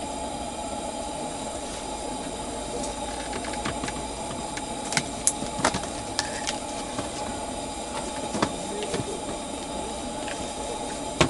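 Steady hiss of a gas-burning camp lantern, with a thin, even tone underneath. A few sharp clicks and knocks from a knife and dishes on the table, bunched together around the middle.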